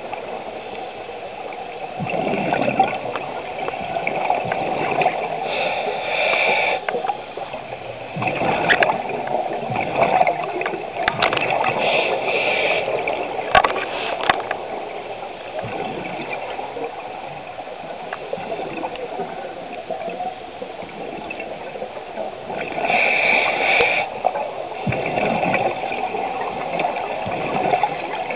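Scuba diver breathing through a regulator underwater: exhaled bubbles gurgle, and a short hiss comes every few seconds.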